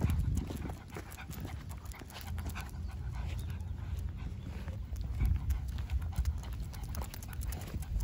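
A Shih Tzu panting as it walks, its paws ticking lightly and repeatedly on an asphalt path, over a steady low rumble.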